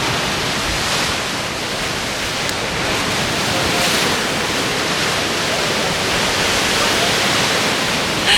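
Steady rushing noise of wind and ocean surf, with no clear pauses or single events.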